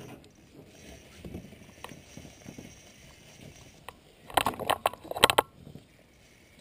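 Faint handling noise from an angler working a bent spinning rod in an aluminium boat. A burst of sharp clicks and knocks comes about four seconds in, and another just after five seconds.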